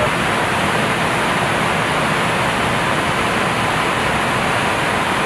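Steady rushing air noise on the flight deck of an Airbus A320 in flight, with a faint steady tone running under it.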